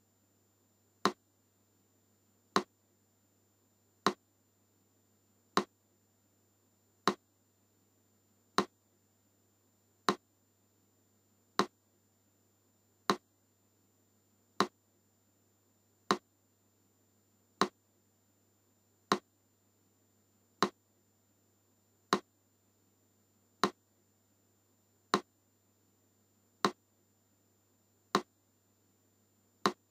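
Metronome clicking at a slow, even beat, one click every second and a half (about 40 beats a minute), with a faint low hum between the clicks.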